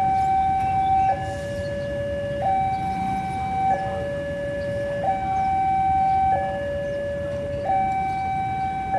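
Two-tone electronic warning siren alternating between a higher and a lower steady note, each held about a second and a quarter, over a low background rumble.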